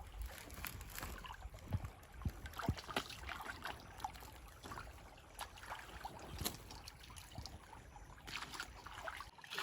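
Shallow stream water trickling, with scattered small splashes and clicks.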